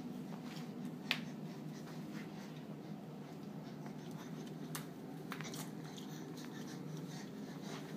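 A crawling baby's hands patting and scuffing on a brick floor: scattered soft taps and rustles, one sharper tap about a second in, over a steady low hum.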